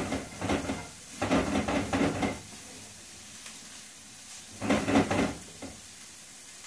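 Bacon sizzling in a frying pan with a steady hiss, while it is stirred and scraped round the pan. The stirring comes in bursts during the first two seconds and again about five seconds in.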